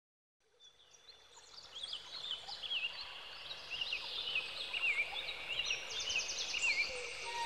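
Several birds chirping and warbling in short, quickly repeated whistled phrases, fading in from silence over the first couple of seconds, with a brief fast trill near the end.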